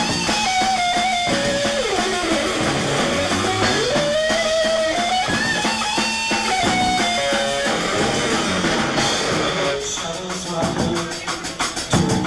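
Live rock band playing an instrumental passage: a lead electric guitar holds long, gliding melody notes over drums and bass, with a drum fill near the end.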